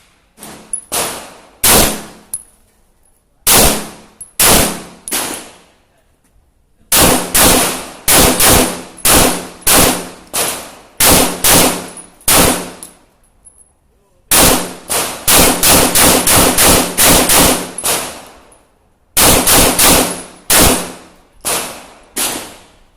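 9mm Glock 17 pistol in a KPOS Scout carbine chassis firing single shots, a few spaced apart and then in quick strings of about two shots a second, each shot with a ringing tail.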